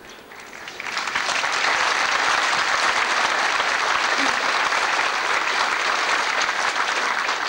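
A large crowd applauding, the clapping swelling in over about the first second and then holding steady.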